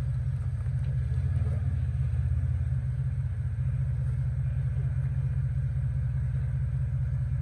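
Third-generation Toyota 4Runner's engine running at low revs as it crawls slowly over rocks: a steady low rumble.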